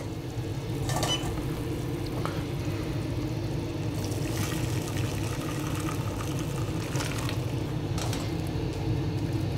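Hot asparagus stock poured from a stainless steel pot through a metal mesh sieve into another pot, a steady splashing pour, with a couple of light metal clinks from the pots and sieve. A steady low hum runs underneath.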